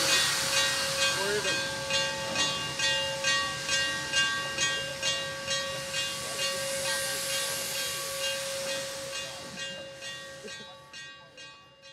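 Steam locomotive 7470 standing and hissing steam, with a steady high whine and a regular pulsing beat about two to three times a second. It all fades away near the end.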